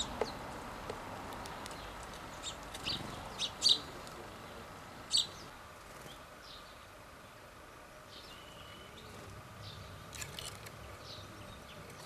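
House sparrows chirping: short single chirps scattered here and there, the loudest a few seconds in, and a quick cluster of chirps about ten seconds in.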